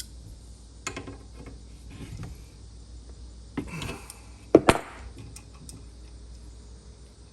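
Scattered metallic clinks and knocks from handling a bent bicycle wheel and tools while truing it, with one sharp, louder knock about four and a half seconds in.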